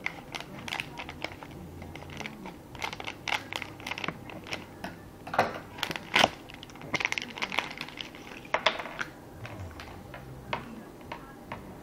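Plastic glow-stick packaging being pulled open and handled: irregular crinkling and clicking, with a few louder cracks around the middle.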